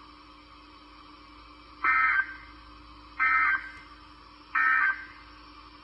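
NOAA Weather Radio Emergency Alert System end-of-message data code, three short bursts of harsh, buzzy digital tones about 1.3 seconds apart that mark the end of the warning, played through a radio speaker.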